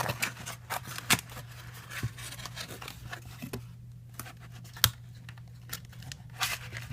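Cardboard pieces of a VR headset kit being folded, pressed and worked by hand: irregular crackles, scrapes and clicks, with a sharper snap about a second in and another near five seconds.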